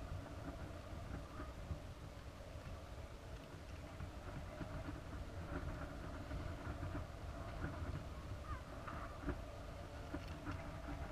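Steady low rumble with faint scattered creaks and ticks, picked up by a camera sealed inside a high-altitude balloon payload as it swings at altitude.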